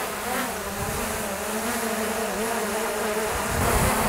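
Two small DJI Mini quadcopters, a Mini 4 Pro and a Mini 3 Pro, hovering close together: a steady buzzing propeller whine, the two slightly different in pitch. Wind rumbles on the microphone underneath.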